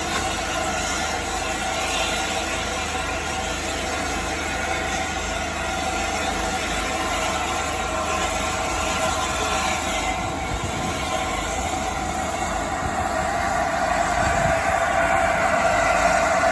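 LNER A4 steam locomotive 60007 Sir Nigel Gresley: a steady hiss of steam with a constant mid-pitched hum, getting louder near the end.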